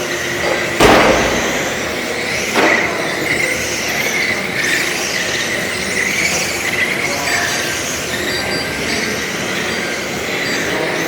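Electric radio-controlled cars running on an indoor track, giving a wavering high whine and squeal. A sharp knock comes about a second in, and another just before three seconds.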